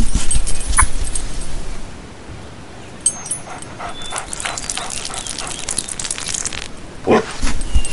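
A dog barking and whimpering.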